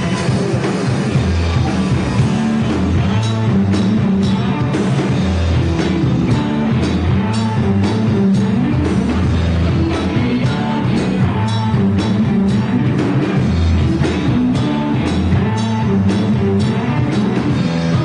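Loud live rock music from a band: drum kit driving a steady beat under distorted electric guitars.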